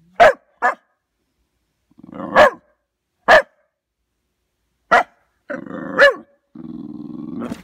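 A young brindle dog barks about six short, sharp barks at a cat. Low growling leads into a couple of the barks, and a longer growl comes near the end.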